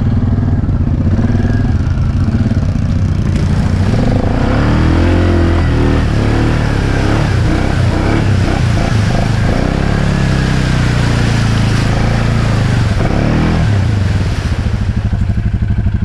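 ATV engine revving hard as the quad plows through a deep mud rut, its pitch rising and falling again and again under load, then easing back to a lower, pulsing note near the end.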